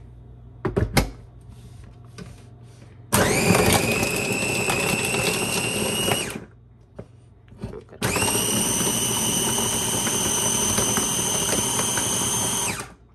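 Electric mini food chopper's motor unit clicked onto the lid, then run in two pulses, about three seconds and then about five, blending chickpeas into hummus. Each run starts with a quickly rising whine that then holds steady, and cuts off sharply.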